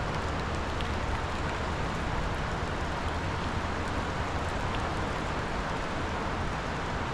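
Steady rushing roar of a river in flood, running about 10 feet above normal, with an even low rumble beneath.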